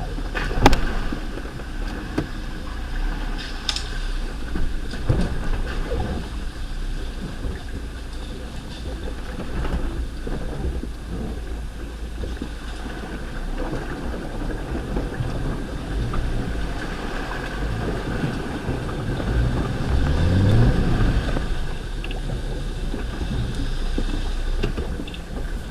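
Off-road vehicle engine running at low speed while crawling over rough trail, with scattered knocks and clunks from the rocks. The engine revs up briefly about twenty seconds in.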